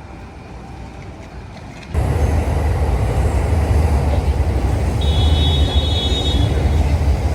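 Loud low rumble of passing vehicles in a city street, cutting in abruptly about two seconds in, with a brief thin high whine in the middle.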